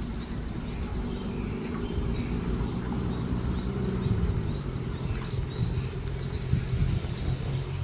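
Wind buffeting the microphone with a steady low rumble, while small birds chirp faintly and repeatedly in the background.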